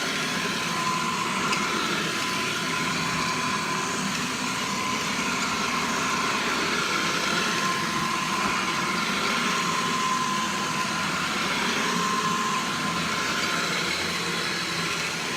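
Vintage Hoover Model 105 upright vacuum cleaner running steadily, with a steady whine over a rushing hum. Its owner calls it pretty quiet.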